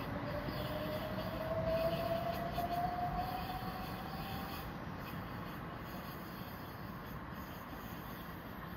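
c2c Class 357 Electrostar electric train pulling away. Its traction motors give a rising whine for the first four seconds or so over a steady rumble, and the sound slowly fades as the train draws off.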